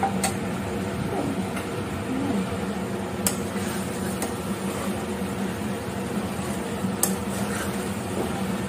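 Metal spatula stirring and scraping potatoes in a metal kadhai, with a few sharp clinks of the spatula against the pan, over a steady low hum.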